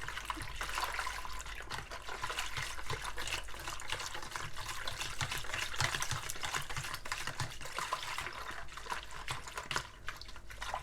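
Water being stirred by hand in a bowl to dissolve fresh yeast: an irregular swishing of liquid with small clicks and knocks against the bowl.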